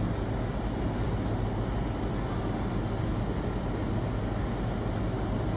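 Steady low hum under a continuous noisy background, without a clear event.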